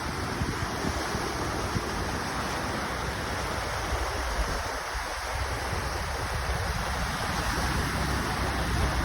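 Steady rushing of wind on the microphone over lake water, with a gusty low rumble that dips about halfway through and then picks up again.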